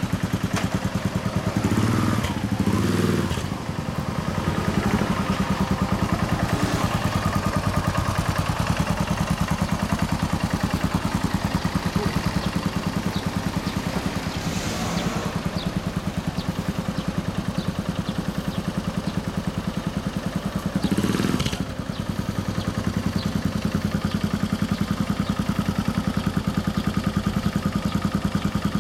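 1990 Yamaha SRX400's single-cylinder four-stroke engine idling through a long aftermarket exhaust: a steady, even stream of exhaust pulses, swelling briefly louder twice.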